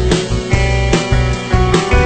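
Background music: a rock track with guitar, bass and a steady drum beat.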